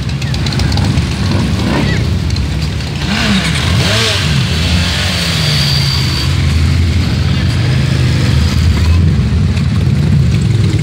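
Several motorcycles, mostly cruisers, riding slowly past close by in a line, their engines running at low revs. About three seconds in, one rider blips the throttle and the engine pitch rises and falls.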